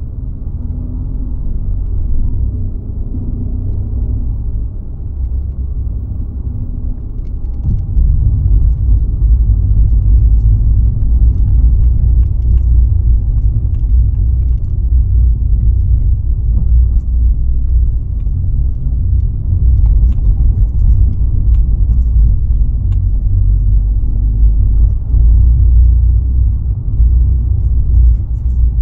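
Car driving along a road: a steady low rumble of tyres and engine that grows louder about eight seconds in and then holds.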